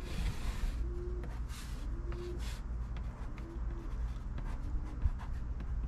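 Pencil scratching on a cardboard template held against the dashboard. There is a longer stroke in the first second and shorter strokes about 1.5 and 2.5 seconds in, with light rustles and taps of the cardboard.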